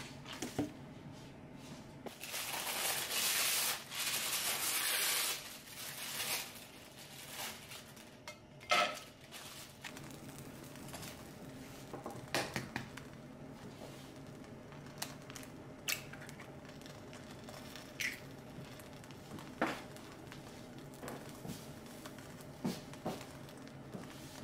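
Kitchen cooking sounds: a rushing hiss for about three seconds near the start, in two parts, then scattered clicks and light knocks of utensils, a pan and containers, over a steady low hum.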